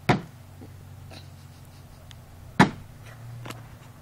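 A toy baseball bat whacking the hollow plastic base of a toy basketball hoop, two sharp hits about two and a half seconds apart.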